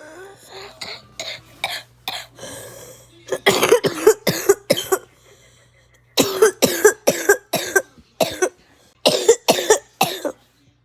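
A person coughing in repeated fits: a few weaker coughs at first, then three loud bouts of about five or six coughs each, with short pauses between them.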